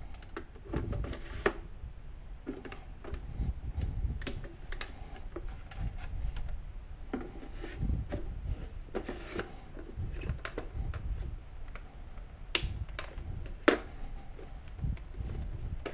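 Irregular clicks, taps and low bumps of hands handling the plastic casing of a Sony CFS-W600 boombox and its detachable speaker box as they are fitted back together, with two sharper clicks toward the end.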